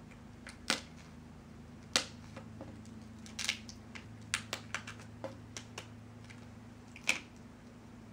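Scattered light clicks and taps of fingers handling a laptop LCD panel and working its display cable connector loose, with a quicker cluster of small ticks around the middle, over a faint steady low hum.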